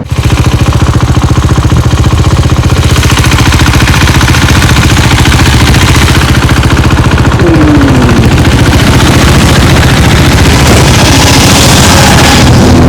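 KTM Duke 390's single-cylinder engine running steadily and loudly as the motorcycle is ridden, with a short falling tone about seven and a half seconds in.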